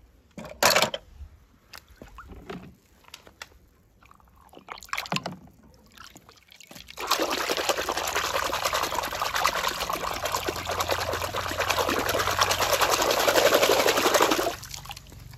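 Scattered light clicks and knocks, then water pouring steadily for about seven seconds before cutting off shortly before the end.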